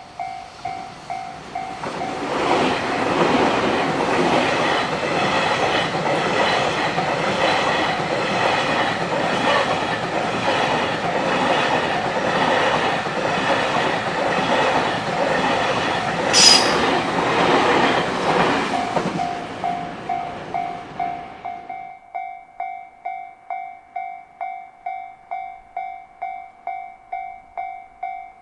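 A Japanese level-crossing bell rings steadily in a quick repeating ding. An electric freight train then rushes past for about twenty seconds with regular wheel clatter over the rail joints, drowning out the bell, with a brief sharp screech about two-thirds of the way through. As the train fades, the crossing bell is heard alone again.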